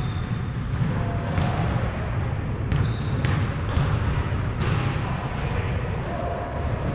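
Basketball bounced on a hardwood gym floor, a few separate, irregularly spaced bounces, with occasional short sneaker squeaks, in a large gymnasium.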